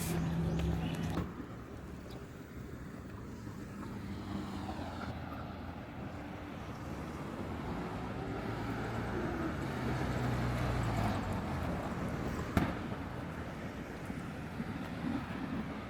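A car passing on the road, its engine and tyre noise building slowly over about ten seconds and then easing off. A low hum stops about a second in, and there is a single sharp click near the end.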